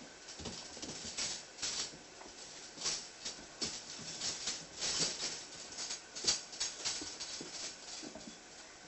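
Red-nose pit bull puppies scrabbling and shuffling on a pegboard floor: claws scratching and paws pattering in irregular bursts, with the rustle of a hand handling them.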